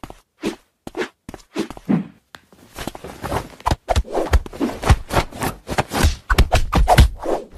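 A hand patting a kitten and the bedding beneath it: soft pats, taps and rustles, spaced out at first and coming fast and dense from about three seconds in.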